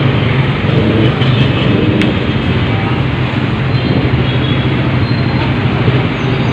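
A vehicle engine running with a steady low hum, over street traffic noise.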